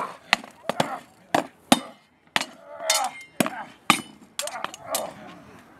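Swords striking wooden round shields and one another in a sparring bout: about a dozen sharp, irregular blows, some with a brief metallic ring.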